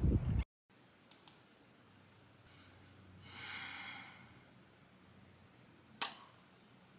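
Half a second of outdoor noise that cuts off suddenly, then a quiet room. A woman sighs once, long and soft, about three seconds in, and takes a short sharp breath about six seconds in.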